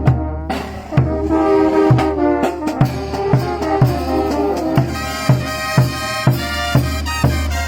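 Brass band music: horns playing a melody over a steady bass drum beat of about two beats a second, with a brief break about half a second in.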